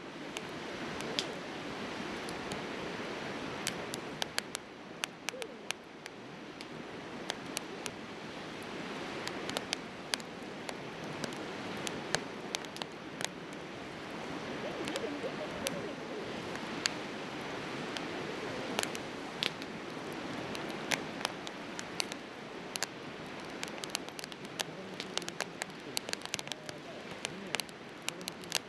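Firewood burning in a Coleman Fire Disc fire pit, crackling with many sharp irregular pops over a steady rushing noise.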